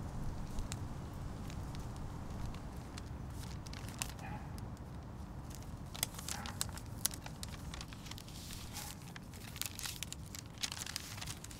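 A paper envelope being handled and opened: crinkling and tearing of paper as scattered crackles, thickest about six seconds in and again near the end, over a steady low background rumble.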